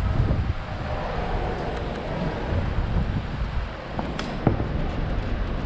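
Low rumble of wind buffeting the microphone, mixed with traffic noise, as the bicycle rolls up beside a stopped car; a single sharp click sounds about four seconds in.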